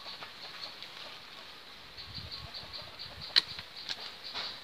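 A single sharp snip of hand pruning shears cutting a branch, about three seconds in, with some rustling of leaves and branches just before it. A high chirping pulses about five times a second throughout.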